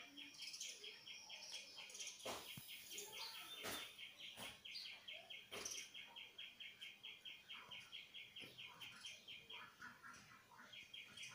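Faint, fast, even chirping, about six high chirps a second, breaking off briefly near the end and then starting again. A few soft knocks fall in the middle.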